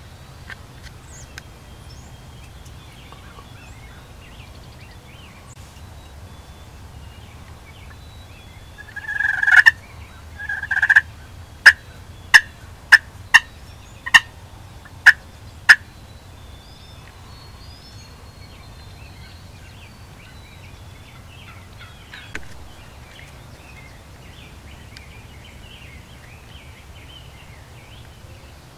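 Wild turkey gobbling twice, each gobble about a second long, followed by a series of seven short, sharp, loud cluck-like notes.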